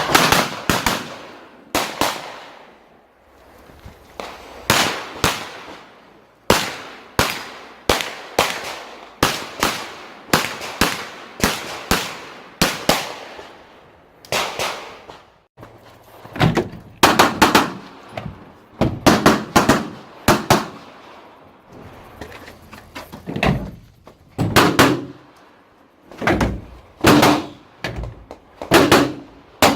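STI 2011 Open-division pistol firing rapid strings of shots, many in quick pairs, with short gaps between strings.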